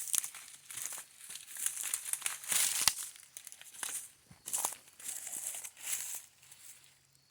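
Footsteps crunching through dry forest leaf litter, an uneven series of crackling steps that fades toward the end.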